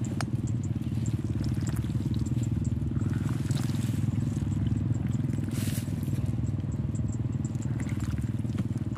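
A small engine running steadily in the background, with a fine, even pulsing to its low hum. Faint wet clicks and squelches come from a hand working in wet paddy mud, with a brief hiss a little past halfway.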